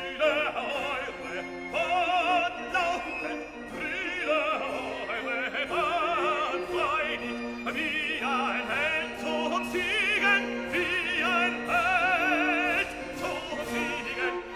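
Operatic singing with a strong vibrato over orchestral accompaniment, sung in German.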